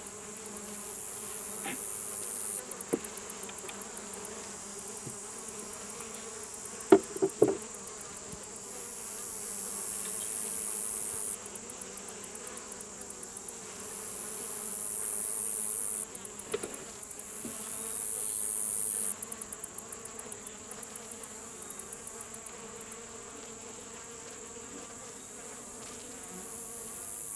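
Honeybees buzzing steadily around an opened beehive, with a couple of sharp knocks about seven seconds in and a few lighter ones as wooden frames are worked loose.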